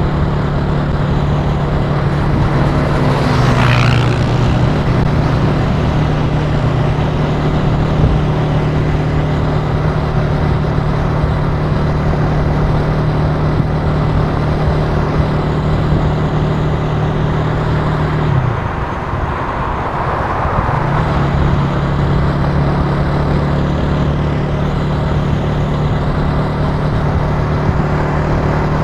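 Italika TC300 motorcycle engine running steadily at cruising speed over wind and road noise. About two-thirds through, the engine note drops away for a couple of seconds as the throttle eases off, then picks back up.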